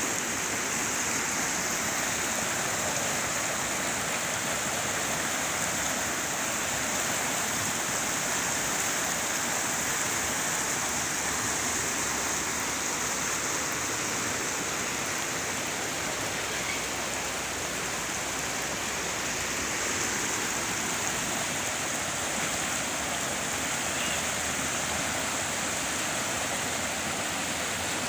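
Steady rushing water, even and unbroken, with no single splashes or strikes standing out.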